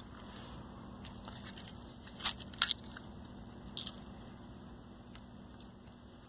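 Desoldering braid being worked on a circuit-board solder pad with a soldering iron. A few short sharp crackles and clicks come about two and a half seconds in, with a couple more a second later, over a low steady hum.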